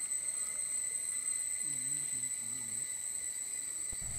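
Steady, high-pitched shrilling of an insect chorus in the surrounding vegetation. A soft, brief murmured voice sounds twice in the middle.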